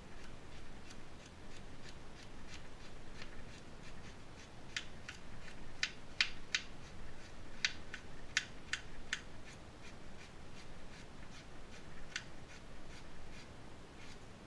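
Kitchen knife chopping a carrot on a plastic cutting board: a steady run of short clicks, about three a second, with a few sharper, louder cuts midway.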